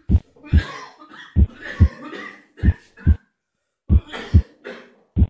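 Heartbeat sound effect, deep double thumps (lub-dub) repeating about every 1.25 s, under a man's laboured coughing and gasping breaths.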